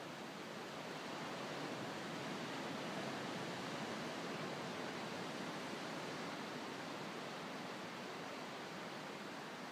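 Ocean waves breaking on a sandy beach: a steady wash of surf that swells a little a couple of seconds in and then eases.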